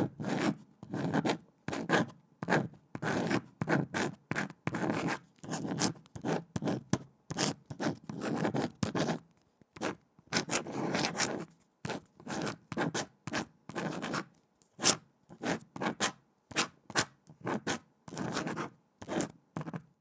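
Pen writing on paper: an irregular run of short scratchy strokes, each lasting a fraction of a second, with brief pauses between them.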